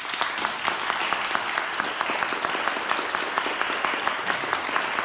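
Audience applauding steadily, with one nearby pair of hands clapping in a quick, even rhythm above the rest.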